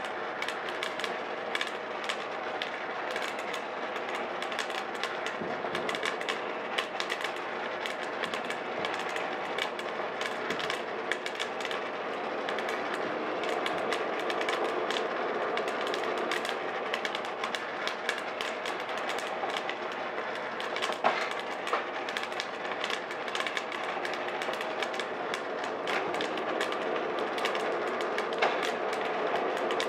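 Coffee beans in second crack inside a West Bend Stir Crazy and turbo oven roaster: dense, rapid crackling snaps over the steady running of the roaster's fan and stirring motor. The beans are being taken to a dark roast and are near the drop.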